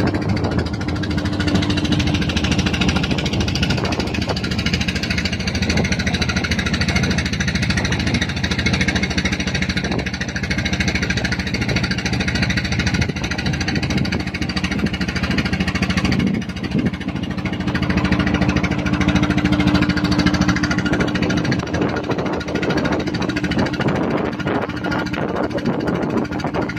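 A boat engine running steadily with a fast, even knock.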